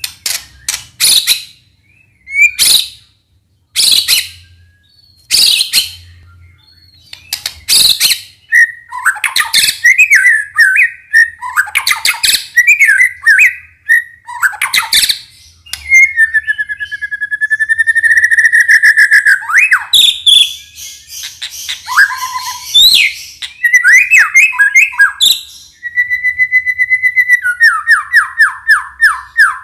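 White-rumped shama (murai batu) song: sharp, harsh calls through the first several seconds, then varied whistled phrases and trills, ending in a fast run of repeated notes that fall slightly in pitch.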